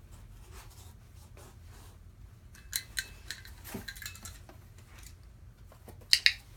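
A dog-training clicker clicks sharply twice in quick succession near the end, marking the dog for stepping onto the cardboard box. A few lighter clicks and knocks come about halfway through, as the box is put down.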